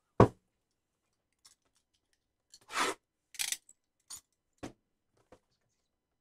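Cardboard trading card hobby box being handled: a sharp knock just after the start as it is picked up, then two short scraping rubs about halfway through as it slides and is set down on the table mat, followed by a few light taps.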